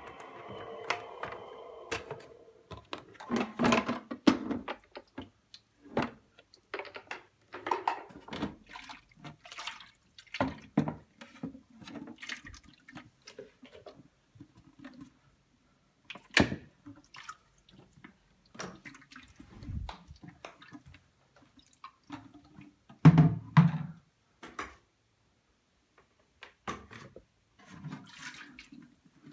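Zelmer Wodnik water-filter vacuum's motor winding down with a falling whine over the first two seconds after switch-off. Then scattered clicks, knocks and thunks of its plastic water tank being unlatched, lifted out and carried, with dirty wash water sloshing inside; the loudest knocks come about 23 seconds in.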